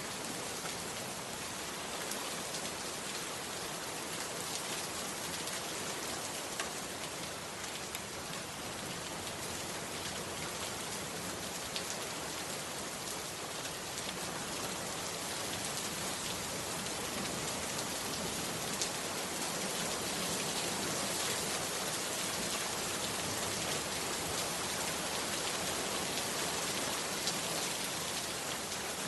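Heavy rain falling steadily, with occasional sharp ticks of drops hitting a surface; it grows a little louder about halfway through.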